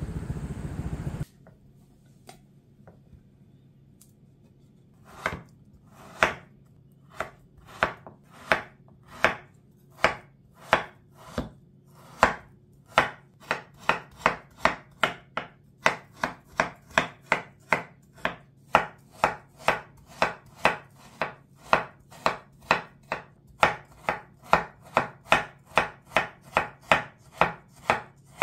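Kitchen knife chopping strawberries finely on a wooden cutting board: a steady run of sharp knocks, slower at first, then about two a second.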